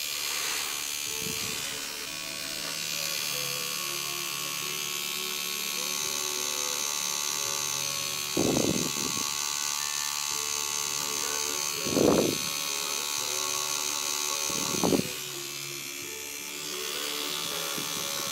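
Tattoo machine buzzing steadily as its needle works white ink into the skin, with three short louder sounds over the buzz in the second half.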